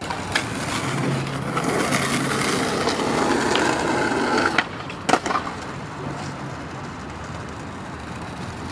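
Skateboard wheels rolling over asphalt, a steady gritty rumble, with a few sharp clacks; it drops in level after about four and a half seconds.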